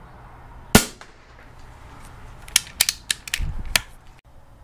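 A single shot from a .22 PCP air rifle, a sharp crack just under a second in. About two seconds later comes a quick run of about six sharp clicks and knocks, with a dull thump among them.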